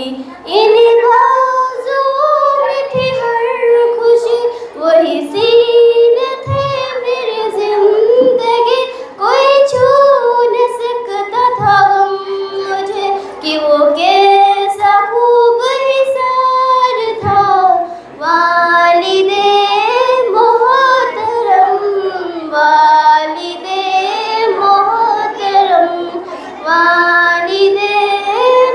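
A girl singing, unaccompanied, an Urdu nazm in praise of her parents into a handheld microphone. One melodic line rises and falls in long held phrases.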